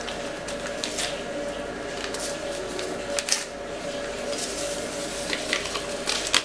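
A small paper sachet of vanilla sugar being handled and torn open: a few soft crinkles and clicks, the clearest about three seconds in and near the end, over a steady faint hum.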